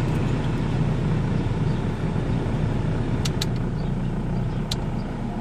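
Dodge Neon four-cylinder engine idling steadily, with a few light clicks around the middle. The new side motor mount has just been fitted to cure a rough idle that shook the dash.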